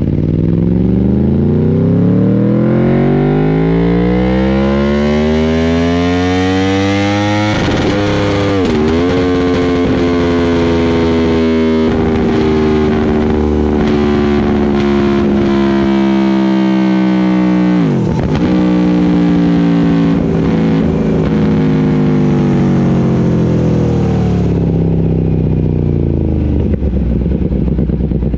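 Aprilia Tuono motorcycle engine with a Yoshimura Alpha-T exhaust being run on a dyno: the revs climb for several seconds, dip briefly about eight seconds in, hold high while easing slowly down, dip sharply again around eighteen seconds in, then wind steadily down to idle near the end.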